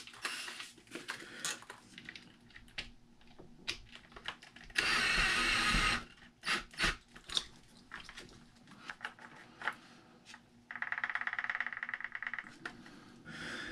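Light clicks and taps of small parts and tools on an RC car's drivetrain, with a short louder whirring burst about five seconds in. Near the end comes a fast, even run of ticks as the pinion and spur gear turn against each other, the gear mesh being checked by ear.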